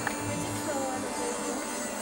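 Faint background music with a steady electrical buzz under it.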